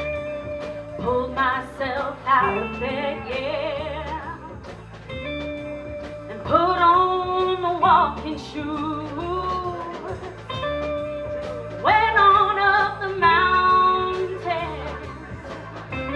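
Live rock band playing: electric guitars, bass, drums and electric keyboard over a steady beat. A lead line bends and slides in pitch, with long held notes about six and twelve seconds in.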